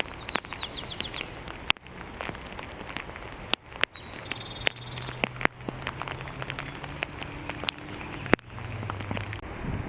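Rain falling, with many sharp scattered taps of drops striking close by. A small bird gives short runs of high chirps near the start and again about four seconds in, and a low steady hum runs from about four seconds until just before the end.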